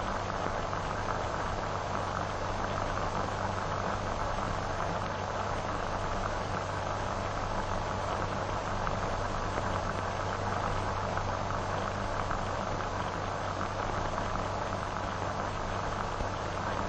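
Steady hiss and low hum of an old optical film soundtrack, with no speech or music.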